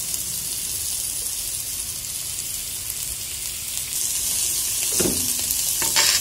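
Shredded cabbage sizzling steadily in a pan of hot fat with fried onion and chile, a little louder from about four seconds in. Near the end a wooden spoon goes in, with two brief knocks against the pan.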